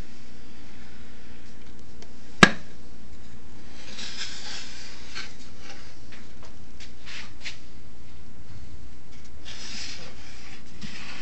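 Sandpaper rubbing on wood in short strokes, with a single sharp knock about two seconds in.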